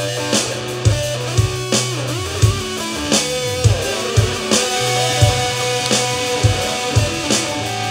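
Instrumental rock jam: an electric guitar plays held and bending lead notes over a low bass line and a steady drum beat.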